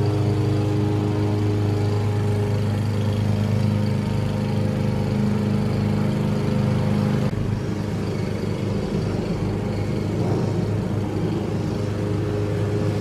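Briggs & Stratton 163 cc engine of a Craftsman M230 self-propelled walk-behind gas mower running steadily under load while cutting grass. The sound changes slightly and gets a little quieter about seven seconds in.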